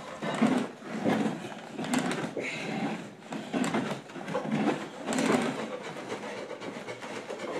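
Hand-held cooper's tool scraping and cutting wood inside a staved wooden bucket, in repeated uneven strokes about once a second.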